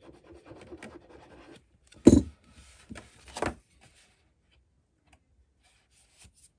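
A glue bottle's nozzle rubbing faintly along a cardstock tab, then handling noise as the red cardstock box side is folded up and pressed into place: a loud rustling knock about two seconds in and a second, softer one about a second later.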